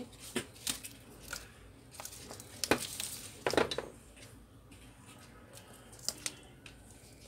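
Clear plastic bag crinkling and rustling as a laptop LCD panel is pulled out of it. The crackles come in short bursts, loudest a little under three seconds in and again about half a second later, with two short ones near the end.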